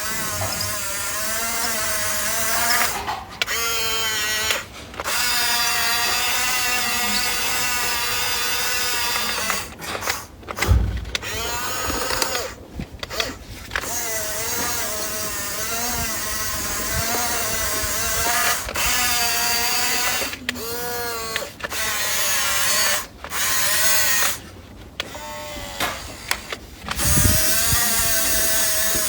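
Toy RC rock-crawler car's small electric motor whining in runs of several seconds, its pitch wavering up and down with the load, cutting out briefly now and then. There are a couple of low thumps.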